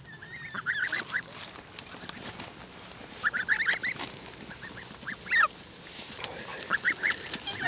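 Young greylag geese giving short, high-pitched peeping calls in quick clusters while they feed, with scattered sharp clicks between the calls.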